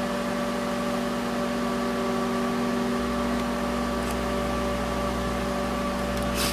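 Microwave oven running: a steady electrical hum with fan noise, its low hum growing heavier about three seconds in.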